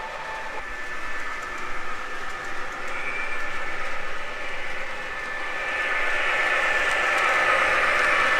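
O scale model train running on the layout track, its cars' wheels rolling and rattling over the rails. The sound grows louder from about five seconds in as the train passes close by.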